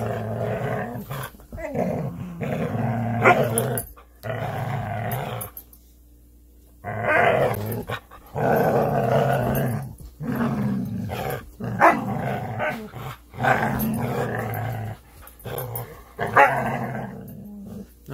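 Two dogs growling in play while tugging on a rope toy: long rumbling growls broken by short pauses, with a few short, louder barks.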